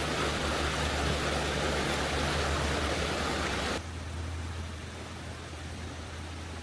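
Steady rushing noise that cuts off abruptly almost four seconds in, leaving a quieter hiss with a low hum.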